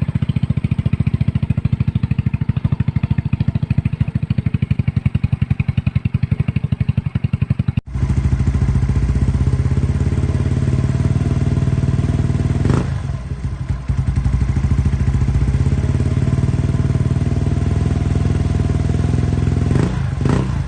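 Yamaha Mio scooter's single-cylinder four-stroke engine idling steadily through an aftermarket exhaust pipe. About eight seconds in, the sound cuts to a second recording of the engine idling through the other pipe. Brief sharp noises cut in once midway and twice near the end.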